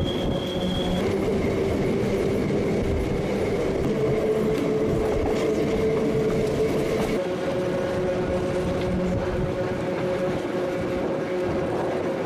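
The Petit Train Jaune, a metre-gauge electric train, running along its track: a steady rumble of wheels on rail with a held whine whose pitch shifts around the middle.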